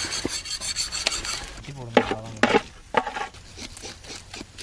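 Fish being scaled by hand with plastic scrapers and knives: rasping, scraping strokes over the scales, with a few sharp knocks of blade and fish against the tub about two to three seconds in.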